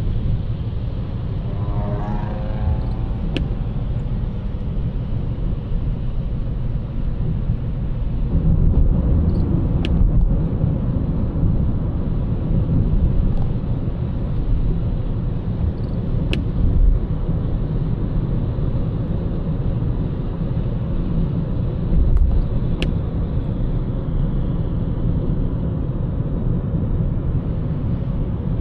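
Car driving on city roads: a steady low rumble of engine and road noise that grows louder about a third of the way in, with a short sharp click about every six and a half seconds.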